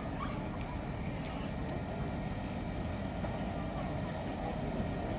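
Steady low rumble of locomotives in a railway yard, with faint voices.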